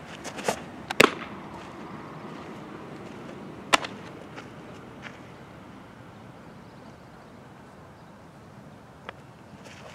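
A softball pops into a catcher's mitt about a second in. A second sharp glove pop comes near four seconds as the ball is thrown back and caught, with a few faint clicks between, over a steady outdoor background.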